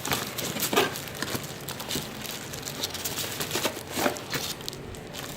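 Packaging being handled as a collapsible camping lantern is taken out of its box: irregular crinkling and rustling with a few small knocks, the loudest about a second in and again about four seconds in.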